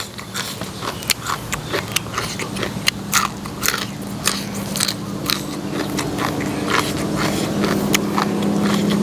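Close-up eating sounds: crisp bites and chewing crunches of papaya salad and raw vegetables, coming in quick irregular clicks. A steady low hum grows louder through the second half.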